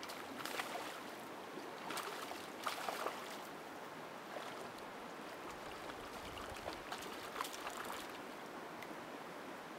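A hooked fish fighting a fly line, splashing at the river's surface in several bursts: about half a second in, again around two to three seconds in, and once more about seven to eight seconds in. Between the splashes the river's flowing water makes a steady hush.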